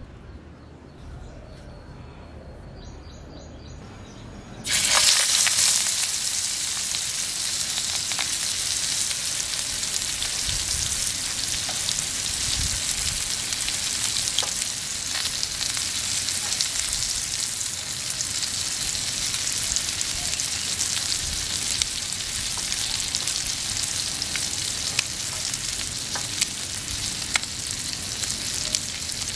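Masala-coated seer fish steak sizzling in hot oil in a frying pan. The sizzling starts suddenly and loudly about five seconds in, then settles to a steady sizzle with scattered pops and crackles.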